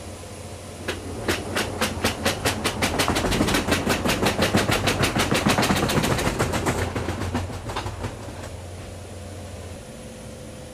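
Cargo pallet rolling along the roller conveyor floor of a C-130 Hercules cargo hold: a rapid, even clatter of about six clacks a second that builds, peaks and fades away over several seconds, over a steady low hum.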